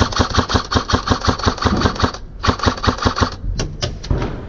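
Airsoft electric rifle firing full-auto close by, about nine shots a second. There is a long burst, a brief pause, a second burst, then a few single shots near the end.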